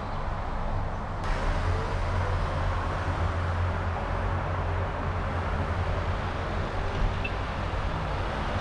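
Honda CR-V 1.5 driving in city traffic: a steady low rumble of road and engine noise with tyre hiss. A brighter hiss comes in suddenly about a second in and stays.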